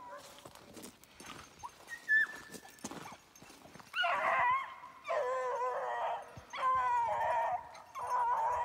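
A rabbit hound baying in long, drawn-out notes, four bays about a second and a half apart starting about four seconds in: the hound giving voice while running a rabbit's scent. Before that only faint rustling in the brush.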